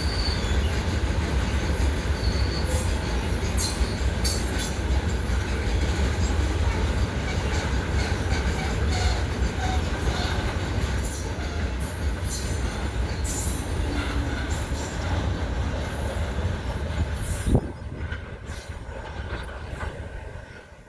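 An Indian Railways train passing close by: the wagons make a steady, loud low rumble, with high-pitched wheel squeals and screeches coming and going. About three-quarters of the way through there is a sharp knock, and then the rumble falls away quickly.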